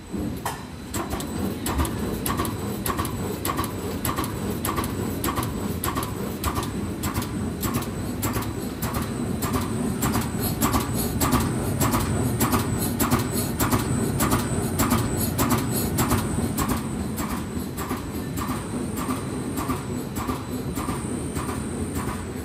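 Paper roll-to-sheet cutting machine (sheeter) running, with a steady mechanical drone and an even click about twice a second as its cross-cutter chops the white wrapping-paper web into sheets.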